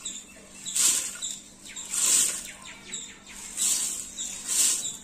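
Washed basmati rice being poured, a little at a time, into a pot of boiling water. Each pour makes a short hissing patter, about once a second.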